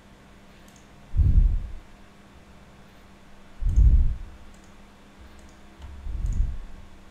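Several faint computer mouse clicks. Louder, low muffled thumps come about every two and a half seconds.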